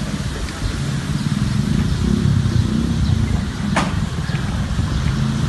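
A vehicle engine running steadily, with a single sharp click a little under four seconds in.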